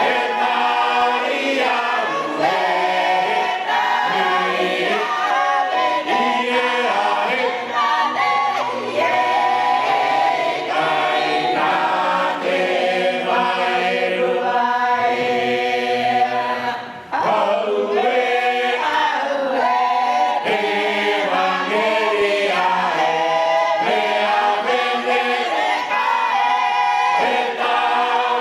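Cook Islands church choir singing a hymn in Cook Islands Māori, with a short break in the singing about halfway through.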